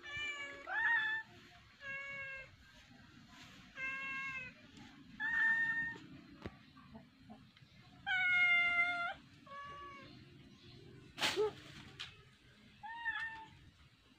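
Domestic cat meowing again and again, short meows one to two seconds apart, with one longer, louder meow about eight seconds in. There is also a brief sharp sound a few seconds before the end.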